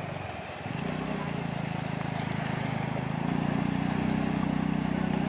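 Vehicle engine running with a steady low hum, its revs stepping up about a second in and again about three seconds in.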